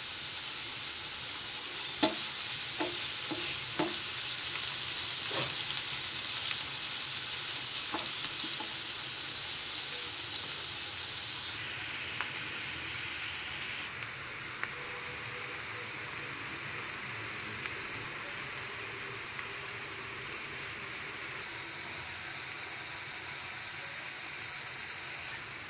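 Chopped onions frying in hot oil in a frying pan, a steady sizzling hiss as they cook toward light brown. A few light clicks come in the first eight seconds.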